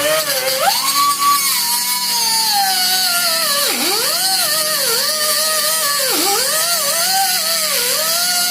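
A high-speed power tool's motor whining as it cuts through exhaust pipe, its pitch sagging hard twice and recovering as the tool bogs under load, over a steady hiss.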